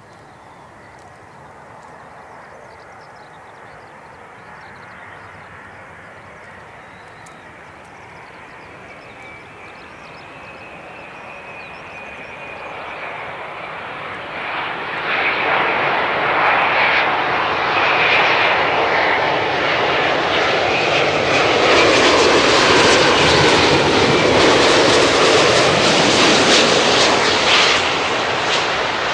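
Boeing 787-9 airliner on final approach with gear down. Its twin turbofan engines grow from a faint distant hum, with a thin high whine, into a loud rushing jet noise about halfway through as the plane comes close, easing slightly near the end.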